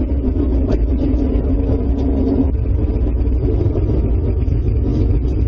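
Loud, low rumbling drone with a steady hum in it, the mysterious noise heard in the sky. The hum fades out about two and a half seconds in while the rumble goes on.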